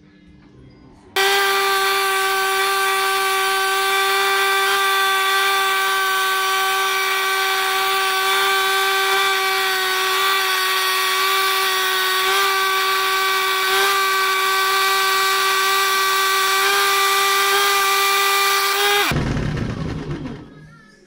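Electric drill driving a reciprocating saw adapter under a table, its blade cutting through perforated steel angle iron. The steady, loud whine starts abruptly about a second in, holds for about eighteen seconds, then cuts off and fades near the end.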